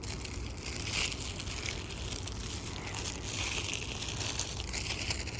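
Continuous crackling, rustling noise with a low rumble underneath.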